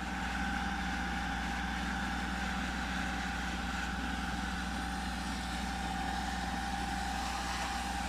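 Fire truck's engine running steadily to drive its water pump: a constant low hum with a steady, unwavering whine above it.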